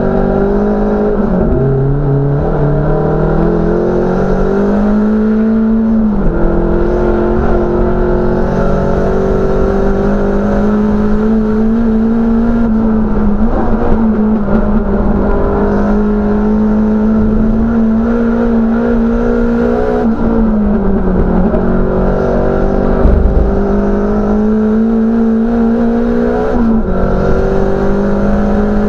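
Race-prepared small hatchback's engine heard from inside the cabin under hard track driving, held at high revs with its pitch slowly climbing, then dipping sharply and recovering about five times.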